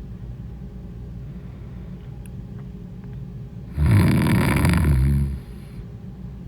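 A woman snoring: one loud snore about a second and a half long, starting a little past halfway, over a low steady rumble.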